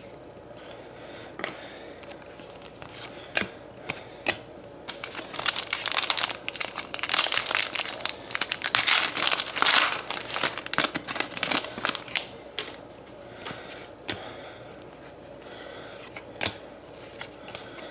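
Trading-card pack wrapper crinkling and tearing as a pack is opened, densest in the middle stretch, with scattered small ticks and taps before and after.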